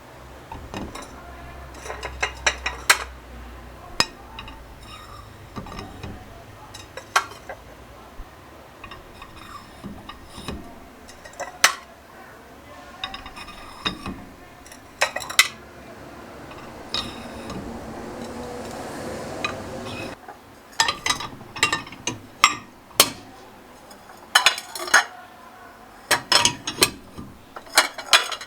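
Dishes and cutlery clinking and knocking as they are handled and set down, in many short, irregular strikes, some ringing briefly. A stretch of steady hiss runs under them for a few seconds past the middle.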